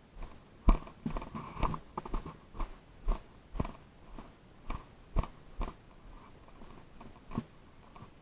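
Footsteps, about two a second, crunching on the ground, then slowing to a single step near the end.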